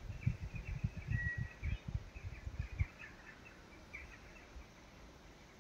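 Small birds giving many short chirps and one brief whistled note, dying away after about four seconds. Irregular low thumps on the microphone run through the first three seconds.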